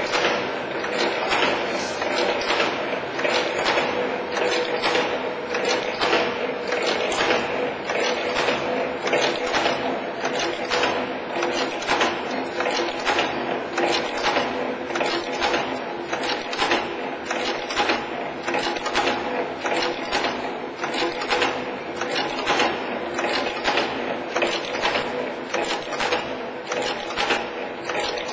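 V-bending wire forming machine running, its cam-driven tools clacking in an even rhythm a little more than once a second as it bends wire into V-shaped hooks, over a steady hum.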